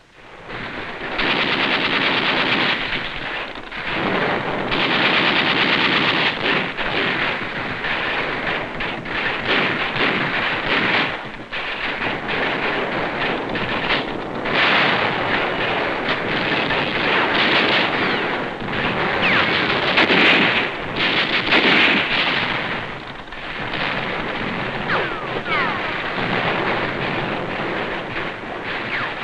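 Continuous battle gunfire, rifle and machine-gun fire crackling densely with the loudness rising and falling, on an old film soundtrack that is hissy and dull with no high end.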